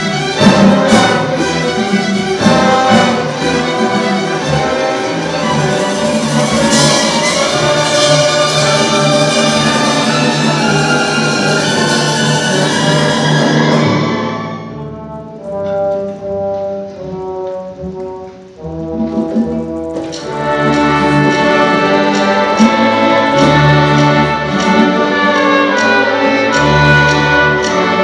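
Youth symphony orchestra playing a classical piece live. It plays a full, loud passage, drops to a quieter, thinner section a little past halfway, then the full orchestra comes back in for the last third.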